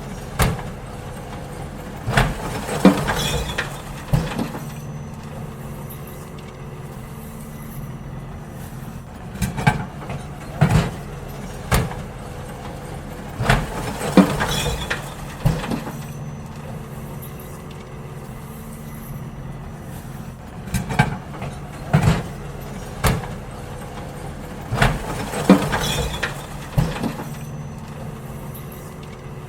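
Garbage truck engine running steadily while emptying bins, with repeated clusters of clattering bangs as the bins are tipped and knocked against the truck.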